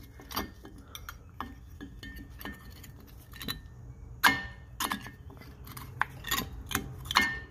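Irregular metal clicks and clinks, with a few sharper knocks in the second half, as a new front brake pad is pushed by hand into the caliper of a BMW E60 5 Series.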